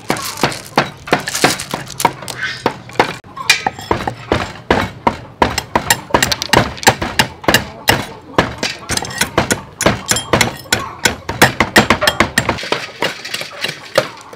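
Cleavers chopping through river snail shells on wooden cutting boards: rapid, uneven knocks with the crack and clink of shell breaking.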